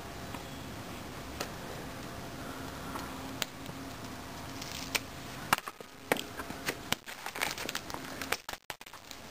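Small handling noises of a plastic film canister being capped and set down on concrete over a steady hiss, turning from about five and a half seconds in to a scatter of sharp little clicks and scuffs.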